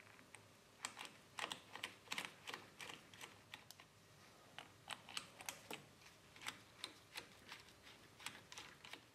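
Light, irregular clicking and tapping, a few clicks a second, from a hex-bit hand driver turning and seating the bolts of a fork-tube clamp on a motorcycle.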